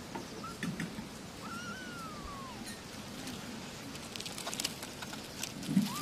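Kitten meowing: a short squeak about a second in, then one drawn-out meow that rises and falls, and another meow starting right at the end, over light rustling and clicks.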